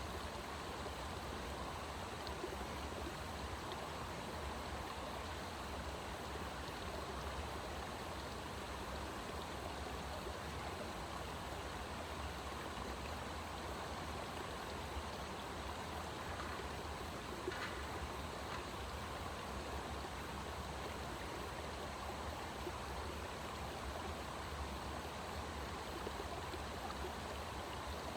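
Steady rush of flowing water, even throughout, with a couple of faint ticks about two-thirds of the way through.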